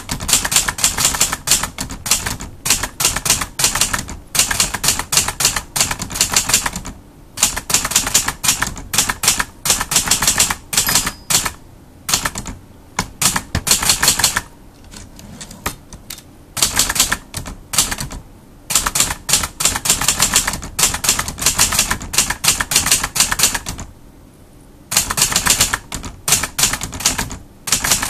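Adler Tippa portable manual typewriter being typed on: rapid clacking of keys and typebars striking, in runs broken by a few short pauses.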